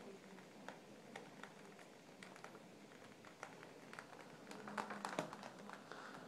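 Faint rain pattering: scattered, irregular taps of falling drops, with a denser, louder run of taps about five seconds in.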